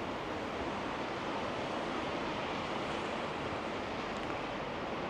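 Rain pelting down in a steady, even hiss.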